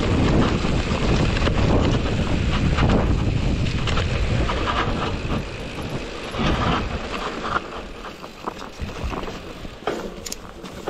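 Wind buffeting the action camera's microphone as a mountain bike rolls down a rocky slope, with sharp clicks and knocks from the bike rattling over stones. The wind noise is heavy for the first half and eases over the second.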